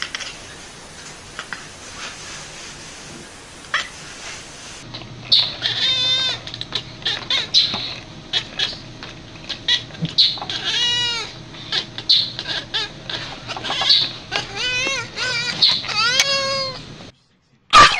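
A cat meowing over and over in short calls that rise and fall in pitch, with clicks and knocks between them. Before the calls start there is a few seconds of hissy background.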